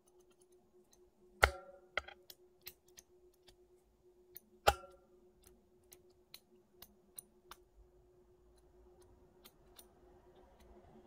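Metal cuticle pusher clicking and scraping against gel-coated fingernails: scattered small clicks, with two louder, briefly ringing clicks about a second and a half in and about three seconds later, as it pries at gel that has not softened. A faint steady hum runs underneath.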